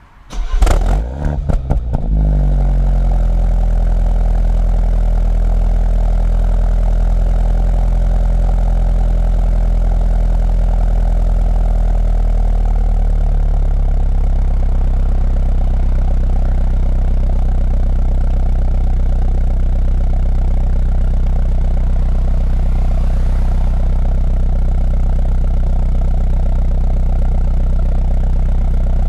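2016 BMW 125i's B48 2.0-litre turbocharged four-cylinder, breathing through a full M140i cat-back exhaust, starting up: about half a second in, a brief burst of cranking and a quick flare of revs as it catches. It then settles into a steady idle whose pitch eases slightly lower over the following several seconds.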